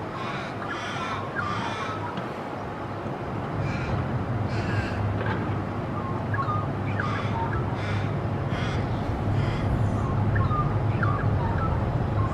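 Little raven cawing: a run of three caws, two more a couple of seconds later, then a run of four, over a steady low rumble.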